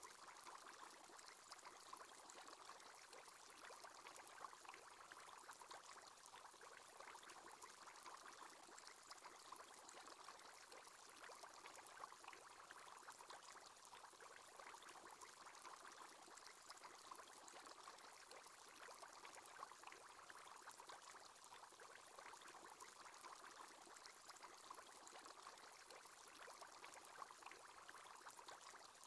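Faint, steady bubbling of an aquarium aerator's bubble column, a dense patter of small pops that never lets up.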